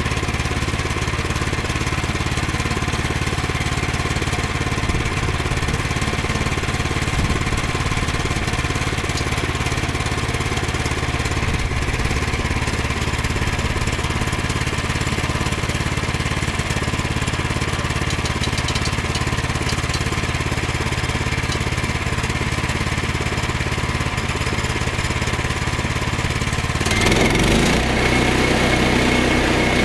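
Small gasoline engine of a Woodland Mills HM122 portable sawmill running steadily. About 27 seconds in, its note changes and gets a little louder.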